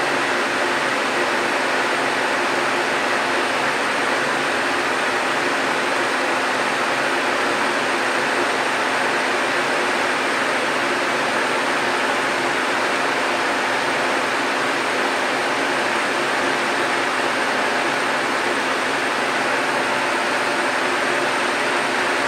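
Steady machine drone with a hiss, unchanging throughout.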